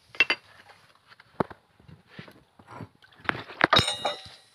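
Small metal parts of a motorcycle disc brake caliper clinking against each other as they are handled for cleaning: scattered light clinks, then a quick cluster with a brief metallic ring about three and a half seconds in.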